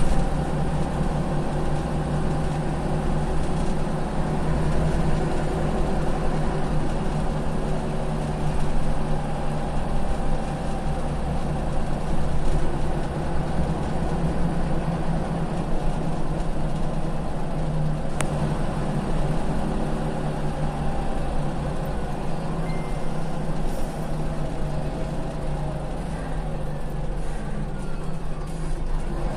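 Scania CL94UB city bus's rear-mounted engine running in a steady low drone, heard from inside the passenger cabin, with a faint whine falling in pitch near the end. The bus is a heavily worn, high-mileage vehicle.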